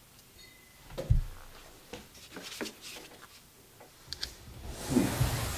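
Hands handling a metal wheel hub and small tools on a workbench: a dull knock about a second in, scattered small clicks and ticks, and a rustling, rubbing noise near the end.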